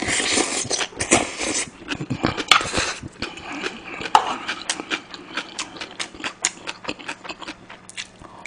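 Close-miked eating sounds: loud slurping of spicy stew off a spoon in the first three seconds, then chewing a mouthful of fried rice with many quick wet smacks and clicks.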